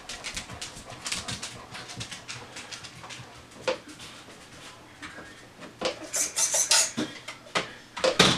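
Scattered clicks and taps of hands handling a small electric Traxxas Slash 1/16 RC truck while trying to switch it on, with a short high hiss about six seconds in and a sharper knock near the end.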